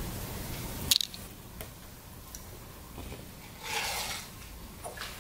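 A baby's hands picking at rice and vegetables on a ceramic plate on a tile floor: a sharp click about a second in, a few faint taps, and a short soft squishing rustle near four seconds.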